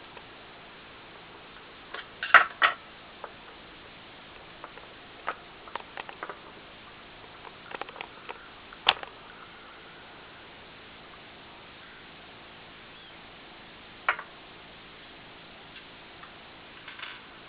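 Small sharp clicks and knocks of tools and metal parts being handled while a hard disk drive is taken apart, the loudest few about two seconds in, near nine seconds and near fourteen seconds, over a steady hiss.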